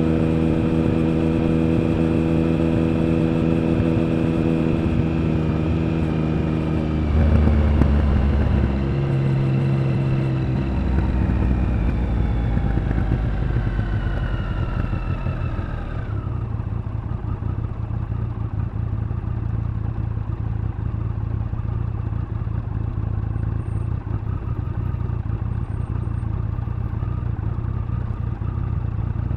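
Triumph Speed Triple 1050's inline three-cylinder engine and exhaust holding steady revs, then a brief louder burst about seven seconds in. The revs fall away as the bike slows, and for the second half the engine idles with a low steady note.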